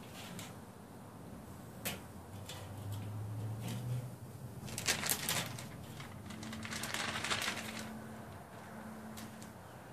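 Wooden tongs clicking and scraping on a charcoal kettle grill's grate as chicken pieces are set down and moved, with a sharp click about two seconds in and two short noisy bursts around five and seven seconds in.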